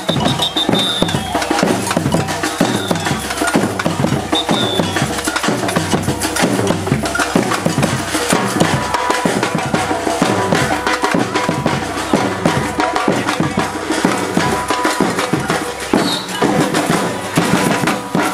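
Brazilian batucada percussion group playing a continuous, driving drum rhythm, with deep bass drum strokes and dense snare and wood-block-like hits. A few short high-pitched tones sound over it near the start and about four seconds in.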